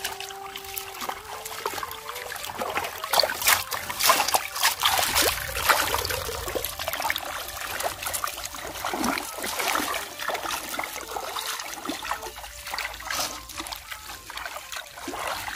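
Shallow river water splashing and trickling, with many small irregular splashes. The splashes are loudest a few seconds in.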